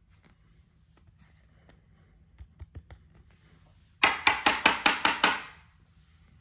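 Handling of the card collection box and its contents: a few light clicks and taps, then about four seconds in a quick run of about seven loud scraping strokes that die away within a second and a half.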